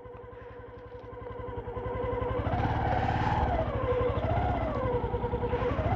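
Motorcycle engine running on a rough, stony downhill dirt track, getting louder about a second in, then its revs swelling up and dropping back three times.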